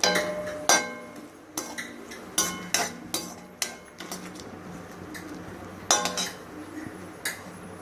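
A metal utensil clinking and scraping against a kadai while vegetables are stir-fried, with a quick run of ringing strikes in the first four seconds and two more near the end.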